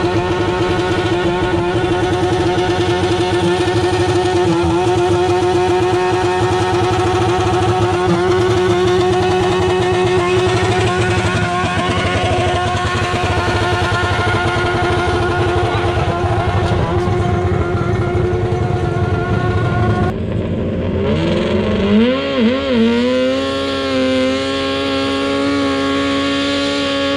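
Modified garden tractor engine running hard at a steady pitch while pulling the sled down the track. About twenty seconds in the sound cuts to an engine that is revved up and down a few times, then held at a steady, higher speed.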